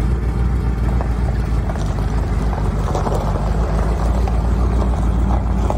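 Jeep Renegade's engine running steadily as the Jeep pulls away slowly across gravel.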